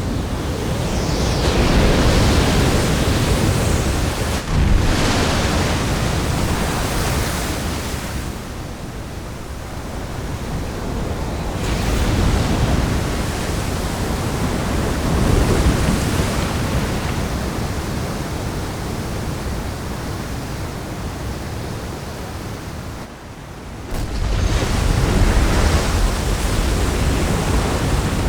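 Storm-sea sound effect: heavy ocean waves rushing and crashing, the roar swelling and falling every few seconds, with a sudden louder surge near the end after a brief lull.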